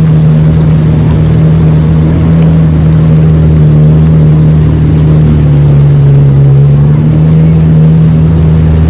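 Jet ski engine running at speed, a loud steady drone, with wind rushing past.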